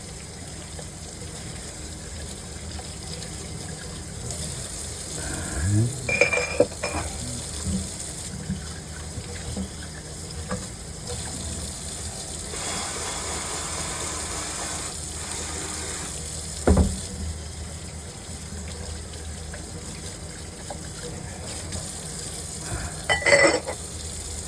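Steady rush of running water, as from a tap or sprayer at a dish sink. A few brief knocks and clatters come through it about six seconds in, once near the middle, and near the end.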